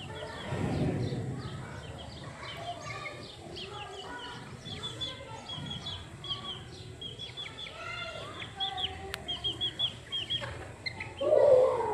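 Chickens clucking, with many quick, high bird chirps repeating throughout and one louder call near the end.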